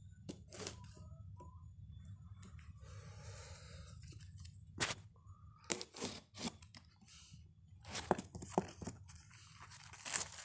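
Packing tape being picked at and torn off a cardboard box. A longer rasping rip comes about three seconds in, followed by a run of short sharp rips and knocks as the box is handled.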